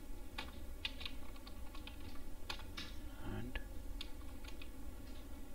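Typing on a computer keyboard: scattered, irregular keystrokes over a steady low hum.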